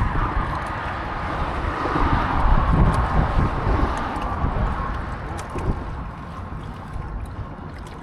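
Wind buffeting the microphone over a boat's motor running, with a faint steady whine that fades out about halfway through.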